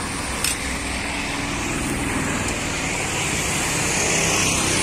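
Steady road traffic noise from passing vehicles, with one sharp clink about half a second in, as of a steel serving spoon against a steel pot.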